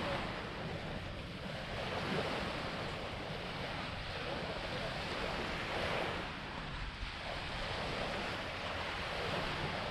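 Small waves washing onto a sandy beach, a steady surf hiss that swells a little now and then, with wind rumbling on the microphone.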